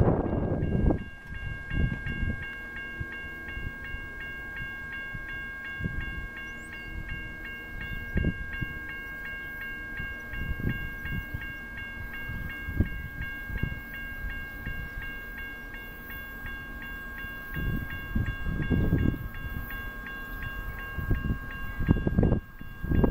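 Railroad grade-crossing bell dinging rapidly and steadily, signalling an approaching train. Irregular low gusts of wind rumble on the microphone over it.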